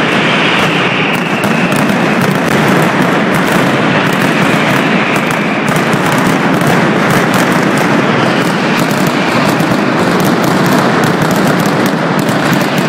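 Mascletà: a dense barrage of firecrackers (masclets) going off in rapid succession, the bangs packed so close that they merge into one continuous, steady din.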